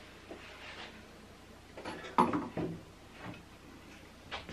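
Flatbed table attachment for a Techsew 2750 cylinder arm sewing machine scraping and knocking against the machine as it is fitted into place, with one sharp knock about two seconds in and a lighter one near the end.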